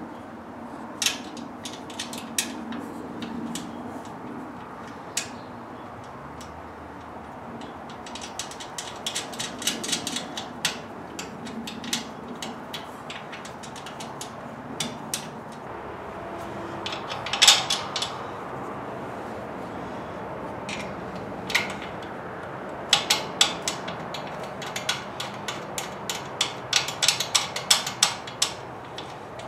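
Socket ratchet clicking in quick runs as the bolts holding the bottom feet are driven into the generator's steel frame, between single sharp knocks of metal on metal. The loudest knock comes a little past halfway.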